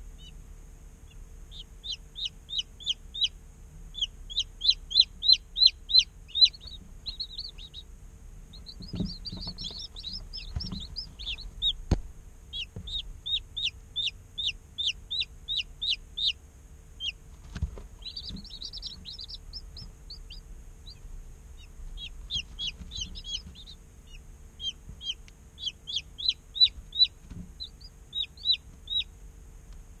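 Day-old chicks peeping: runs of short, high, downward-sliding peeps, several a second, broken by brief pauses. A few soft knocks, and a faint steady hum underneath.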